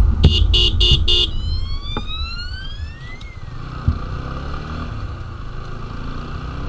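Motorcycle horn beeped four times in quick succession. The TVS Apache RTR 160 4V's single-cylinder engine then rises in pitch and settles to a low, quieter running note, with wind noise on the microphone.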